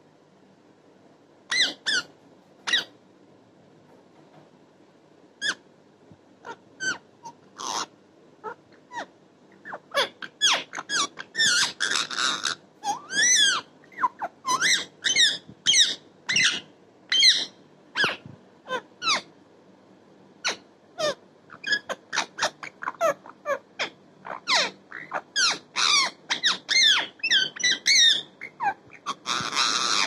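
Rose-ringed parakeet making short, high-pitched squeaky chirps that sweep up and down in pitch. The chirps are scattered at first, then come in rapid, nearly continuous runs through the second half.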